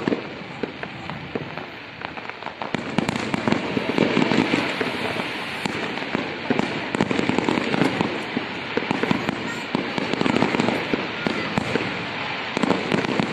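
Aerial fireworks bursting in a dense run of bangs and crackling pops, thickening and getting louder about three seconds in.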